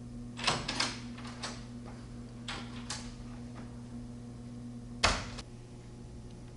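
A wooden room door being unlatched and pulled open, with a cluster of handle and latch clicks and knocks, a couple more knocks a second or two later, then one loud thud about five seconds in as the door shuts.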